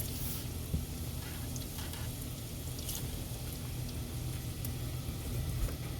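Steady sizzling hiss of frying oil over a low hum, with a few faint ticks.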